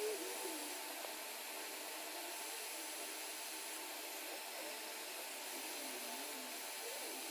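Steady whoosh of a hot-air rework station blowing, as it heats surface-mount resistors on a circuit board to unsolder and replace them.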